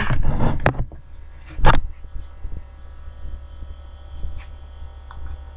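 Handling noise from a camera being moved and turned: several knocks in the first second and one sharp, loud knock about a second and a half in, then a few faint clicks, over a steady low hum.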